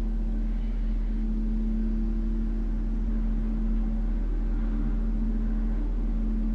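Steady low electrical or appliance hum at one constant pitch, with no clear sound of the spooning.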